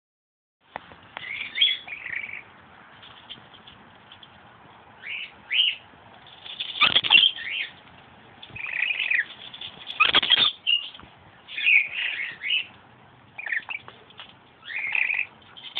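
Scaly-breasted lorikeet (olive colour mutation) chattering in short bursts of high chirps and squeaks, with two louder, noisier bursts about seven and ten seconds in.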